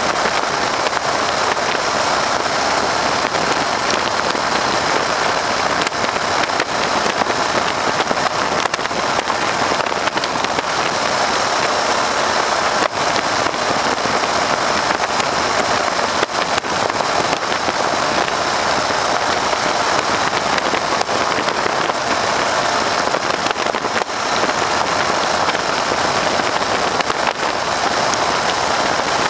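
Steady loud rush of slipstream in an open-cockpit PT-13 Stearman biplane in flight, blended with the drone of its Lycoming R-680 radial engine.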